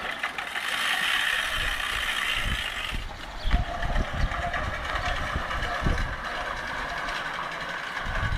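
Push reel lawn mower cutting grass, its spinning cylinder blades making a steady whir that eases about three seconds in. A few low thumps come in the middle.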